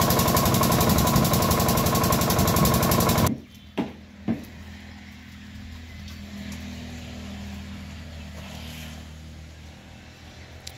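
Small diesel water-pump engine running loudly, with its steady firing pulse and the hiss of the water jet. About three seconds in it cuts off abruptly to a much quieter low, steady engine hum. Two sharp knocks follow shortly after the cut.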